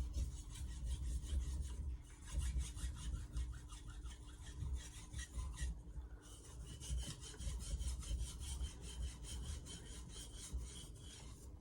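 VG10 stainless steel knife blade being stroked back and forth on a Naniwa Aotoishi 2000-grit water stone with a thin slurry: quick, rhythmic scraping, several strokes a second, with a short break about halfway through.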